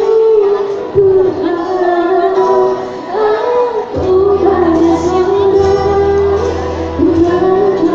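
A female vocalist sings a melody into a microphone over a backing track, amplified through PA speakers. A bass line comes in about four seconds in.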